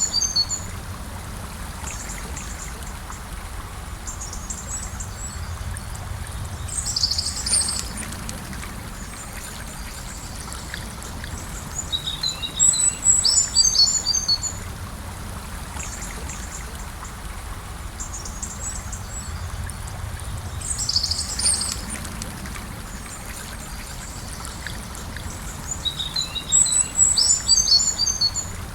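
Gentle river flowing steadily, with a songbird singing short phrases of high chirps five times.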